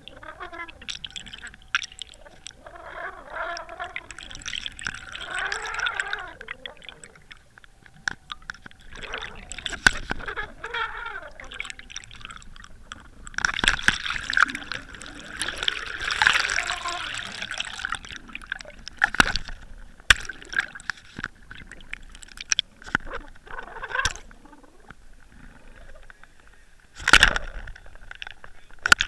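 Water gurgling and bubbling around an underwater camera as it is drawn up through the lake, with scattered clicks and knocks. The gush is loudest about halfway through, and there is a short loud burst near the end as the camera nears the surface.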